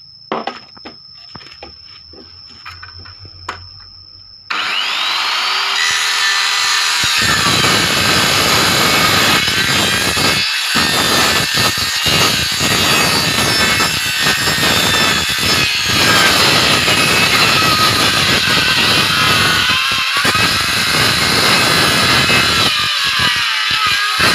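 A few light knocks from handling, then about four seconds in an electric circular saw is switched on, its pitch rising as it spins up, and it cuts across a thick bamboo pole with a loud, rough noise that breaks off briefly a few times.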